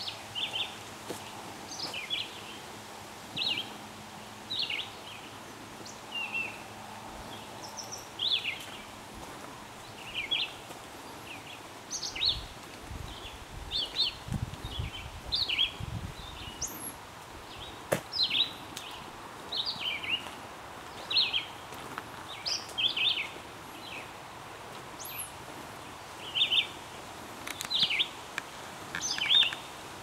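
Songbirds chirping in woodland: short, high calls repeated about once a second, some dropping in pitch, over a steady faint background hiss. A low rumble comes through for a few seconds near the middle.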